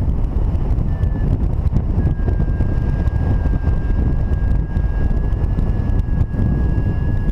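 Wind buffeting the microphone of a paraglider pilot's camera in flight, a loud, rough, steady rush. A faint steady high tone comes in about two seconds in.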